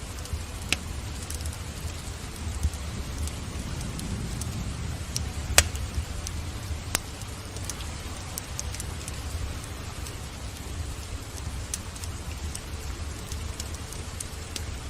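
Wood fire crackling in a fireplace, with a few sharp pops (the loudest about five and a half seconds in), over steady rain and a low rumble.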